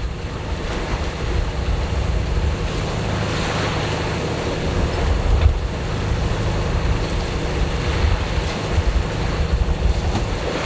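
Sailboat under way in a swell: water rushing and splashing along the hull and wind buffeting the microphone, over the steady drone of the boat's auxiliary engine.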